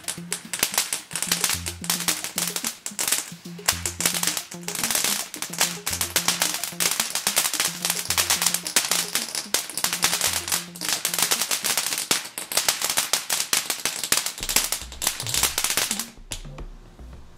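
Fireworks crackling in a rapid, dense stream of small pops, over background music with a repeating bass line. The crackling stops about sixteen seconds in, leaving the music.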